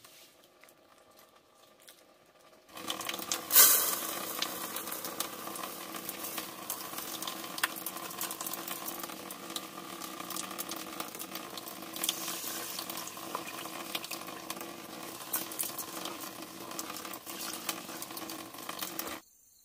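Hulled mung beans being washed by hand in water in an aluminium pot: starting about three seconds in, water is poured in with a splash, then the wet beans are swished and rubbed steadily with many small clicks and splashes, stopping suddenly near the end.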